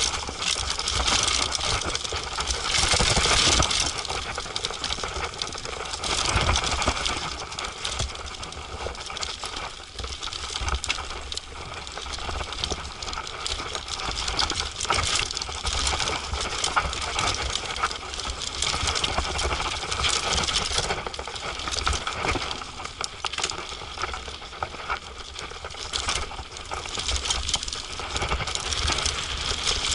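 Mountain bike rattling and clattering continuously as it descends a rough dirt and rock trail, heard from a camera mounted on the handlebars, with many irregular knocks as the wheels hit bumps.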